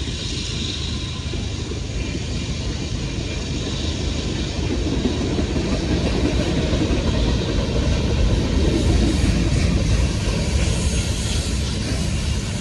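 Freight train cars rolling past: a steady rumble and rattle of wheels on the rails. It grows louder about four or five seconds in.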